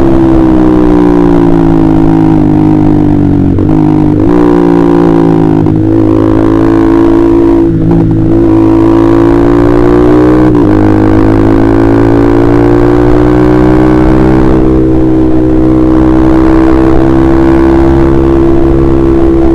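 Honda CBR150R's single-cylinder engine running through an aftermarket KJ Pro exhaust while riding. The engine note falls at first, with several short breaks in the first half where the pitch drops or jumps. It then climbs slowly and holds steady.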